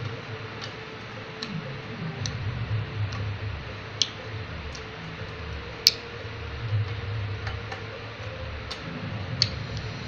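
Budgerigar tapping its beak against a mirror: sharp, irregular taps, about eight or nine of them, the loudest about six seconds in, over a low steady hum.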